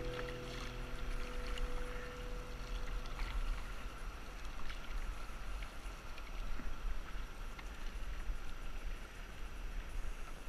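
Canoe moving on a river: water lapping and trickling against the hull, with wind rumbling on the microphone. The last piano note fades out about a second in.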